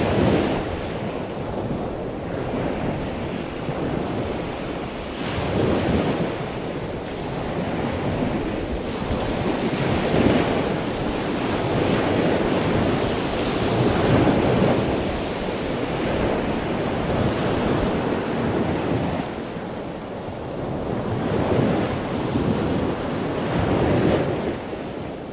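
Rushing water ambience, a steady haze of noise that swells and eases every few seconds.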